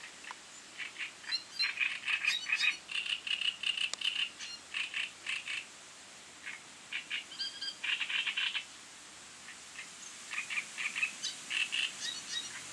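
Rapidly repeated chattering animal calls in three bursts, the loudest from about one to five seconds in, over a faint steady hiss.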